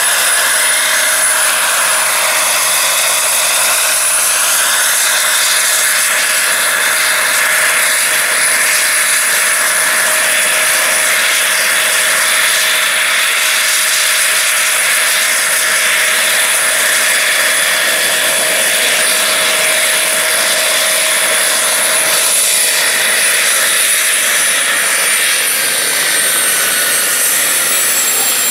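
Turbine engine of a large radio-controlled scale Bell 412 model helicopter running with a steady high whine over the rush of the spinning rotors as it hovers low. Near the end the whine falls in pitch as the model settles onto its skids.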